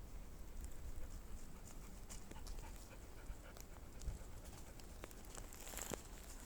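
A dog panting, with faint clicks and rustles over a low steady rumble.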